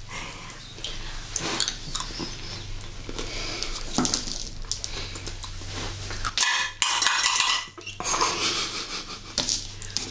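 Small hard-shelled chocolate candy eggs clicking and clattering against a dish as they are picked up and handled, in scattered small clinks, with a denser rattle for about a second and a half past the middle.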